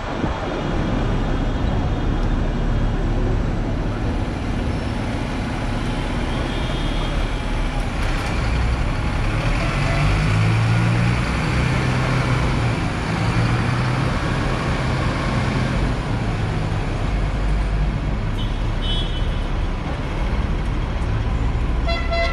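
Hong Kong double-decker tram running along its street track, heard from the upper deck: a steady rumble of steel wheels on rails and motor hum, mixed with surrounding bus and road traffic. Brief high ringing tones sound near the end.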